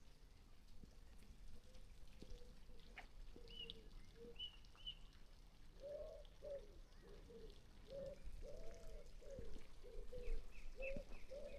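A pigeon cooing in repeated low phrases, faint at first and louder from about halfway through, with a few short high chirps from a small songbird.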